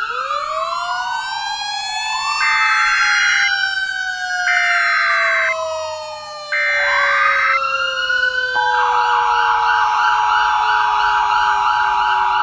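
Several sirens layered together, their pitch gliding up and down, one of them winding slowly down throughout. Three short blasts of a steady tone about two seconds apart cut across them. About two-thirds in, a steady alert tone and a fast warbling siren set in and hold.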